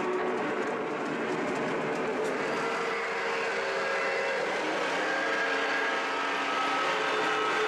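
O gauge model steam locomotive running on three-rail track: steady rolling noise of wheels on rails, with a layered humming whine whose pitch shifts a little partway through.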